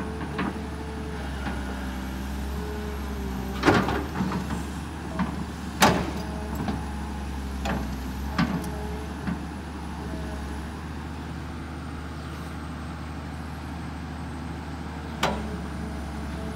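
Kobelco SK200 hydraulic excavator's diesel engine running steadily under work, with several sharp knocks and clanks from the digging, the loudest about four and six seconds in.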